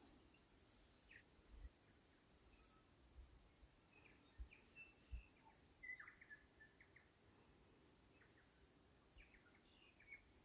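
Tui calling faintly in the distance: scattered short whistled and clicking notes in small clusters over an otherwise near-silent background.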